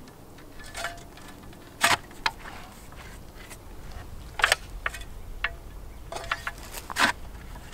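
Two-handled clamshell post hole digger jabbed down into a post hole again and again, its steel blades chopping into packed dirt and roots with a series of short, sharp thuds at uneven intervals.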